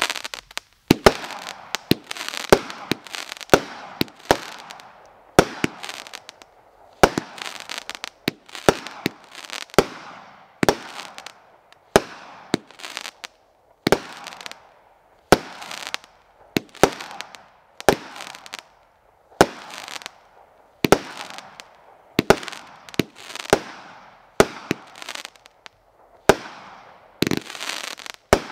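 Multi-shot consumer fireworks cake, "Grapes Over Vineyard", firing: a steady series of sharp bangs, roughly one a second, each followed by the crackle of its burst.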